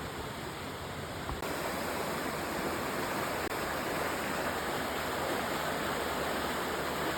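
Steady rush of falling water from a waterfall, a little louder from about a second and a half in.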